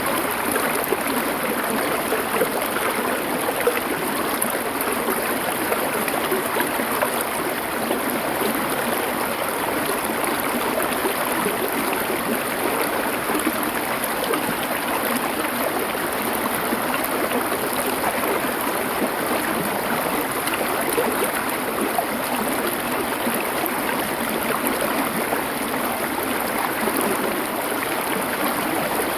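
Small river flowing over stones: a steady, even rushing and gurgling of water.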